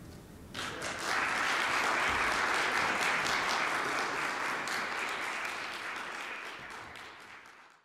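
Audience applauding: the clapping starts about half a second in, builds about a second in, then slowly tapers off and cuts off abruptly near the end.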